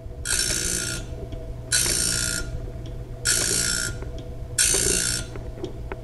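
Electric grinder of a homemade bandsaw blade sharpener running steadily, its wheel grinding the teeth of a steel bandsaw blade in four short passes about a second and a half apart as the hand lever is worked, with light clicks of the lever linkage between passes.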